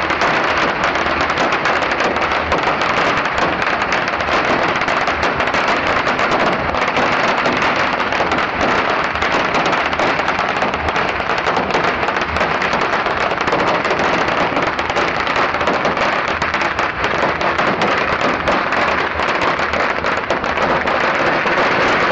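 A pagara, a very long string of small red firecrackers, going off in a continuous dense crackle of rapid bangs.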